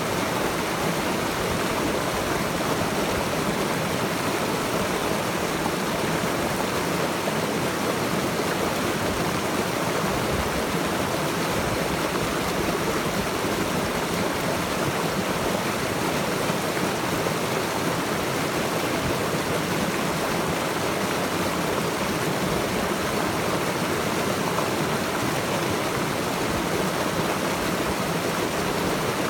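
Running water of a stream, a steady, even rush with no breaks or changes in level.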